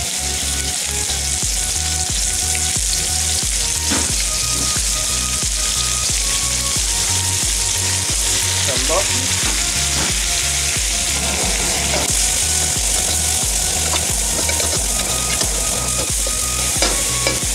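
Onions sizzling hard in hot oil in a wok, stir-fried with occasional scrapes and knocks of the utensil against the pan. Background music with a steady low beat underneath.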